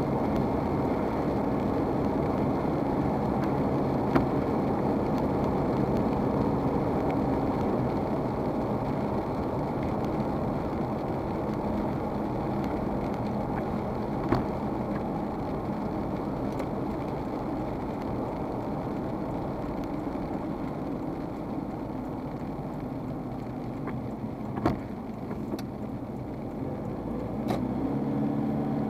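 Steady in-cabin engine and road noise of a vehicle driving on a wet road, heard through a dashcam's microphone, with tyres hissing on the wet surface. A few short sharp clicks stand out, and the engine note changes near the end as the vehicle slows.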